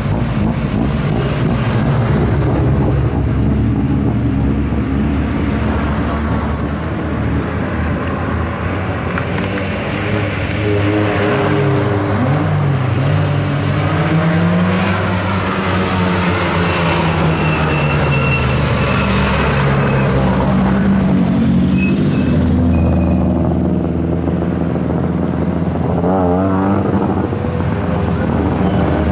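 Hillclimb race car engine running hard, its pitch climbing and dropping repeatedly as it revs through gear changes.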